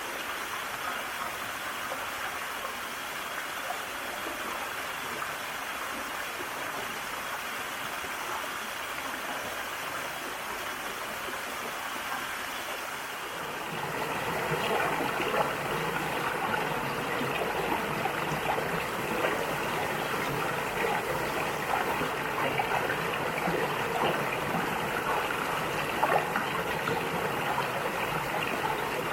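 Mountain valley stream flowing over rocks, a steady rush of water. About halfway through it becomes louder and fuller, with small splashes standing out.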